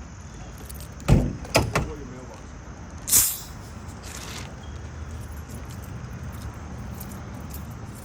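Three heavy thuds in quick succession, like a vehicle door closing, about a second in, followed by a short sharp hiss and a fainter one, over a steady low vehicle engine rumble.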